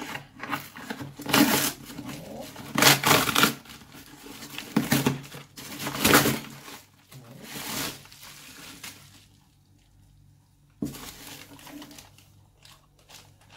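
Scissors cutting and ripping through a cardboard box, heard as five loud rasping bursts over the first eight seconds. After that it is quieter, with light handling of the packing and a short sharp sound near the end.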